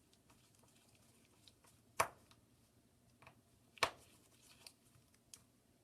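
Small hand tools and tiny metal parts being handled on a work surface during a tablet repair: light ticks and taps, with two sharper clicks about two and four seconds in.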